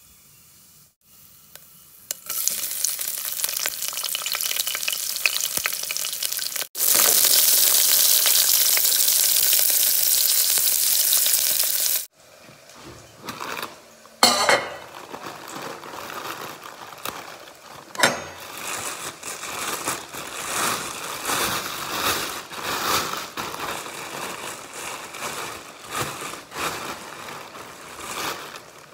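Mustard seeds sizzling in hot oil in a steel pan, much louder from about seven seconds in, then cutting off abruptly. After that a steel pot lid clinks twice as it is handled, followed by plastic bag rustling.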